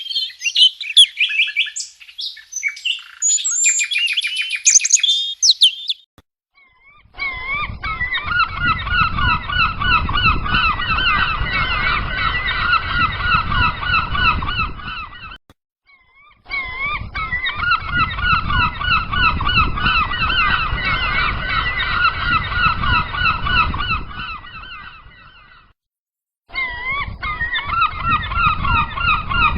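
A flock of gulls calling over one another: a dense chorus of repeated, wavering calls over a low rumbling noise, cutting out briefly twice. It is preceded for about the first six seconds by a different, higher-pitched chirping with rapid clicks.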